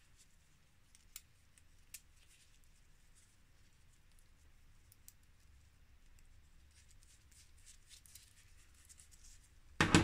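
Small metal brake parts, a shoe bolt and its washers, handled in gloved fingers: faint clicks and light rustling. Just before the end a sharp, loud knock as a part is set down on the bench.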